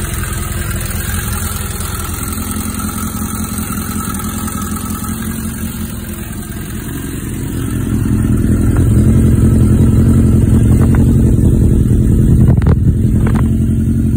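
Suzuki GSX600F's inline four-cylinder engine idling steadily and running quite nicely after standing over a year. It gets louder about eight seconds in, heard close to the exhaust silencer.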